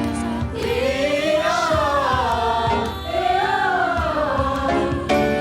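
A choir singing long held notes that rise and fall over instrumental accompaniment.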